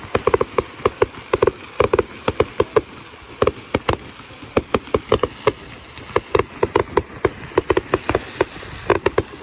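Fireworks going off: many sharp bangs and crackles in quick, irregular clusters, several a second, with short pauses between clusters.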